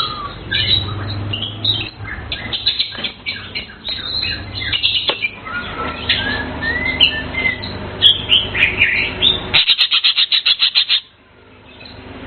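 Cucak keling (Asian fairy-bluebird) singing: a varied run of chirps and rising and falling whistles, then a fast, even trill of about ten notes a second that stops abruptly about eleven seconds in.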